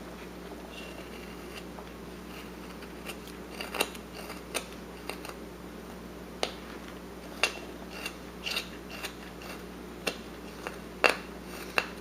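Carving knife cutting wood by hand: short, sharp slicing clicks at irregular intervals, about a dozen, as small chips come off the carving, the loudest near the end. A steady low hum runs underneath.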